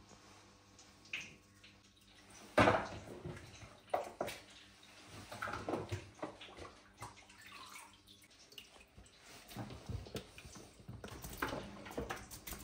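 Kitchen handling sounds: water splashing and sloshing, with scattered knocks and rustles as plastic food tubs and chicken pieces are handled. One sharp knock about two and a half seconds in is the loudest.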